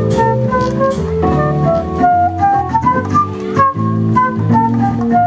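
A live jazz combo playing: an electronic keyboard with an organ sound carries the melody over a bass line that changes note about every half second, with drums and cymbal strokes.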